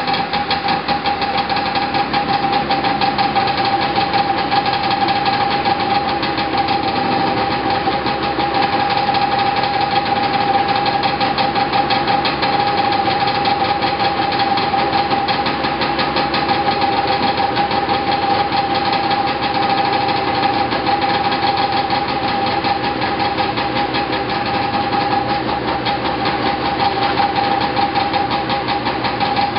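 Arctic Cat Jag snowmobile's two-stroke engine idling steadily after a cold start, with a strong steady high tone over a fast, even firing rattle.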